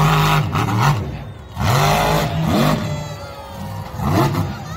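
Monster truck engine revving hard in repeated bursts, its pitch rising and falling with each blip of the throttle. It eases off about a second in, then revs up again, with another short burst near the end.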